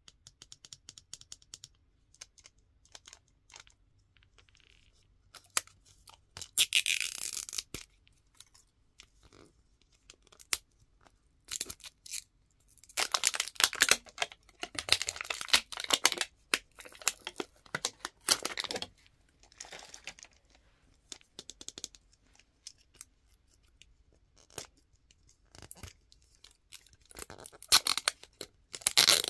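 Printed plastic wrapper on a Toy Mini Brands capsule ball crinkling and tearing as it is peeled off by hand. It comes in several bursts, with light clicks and scratches on the plastic between them.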